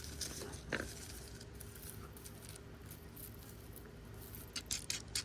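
Toy animal figures being handled and moved: a soft tap about a second in, then a quick run of light clicks and taps near the end, over a low background hum.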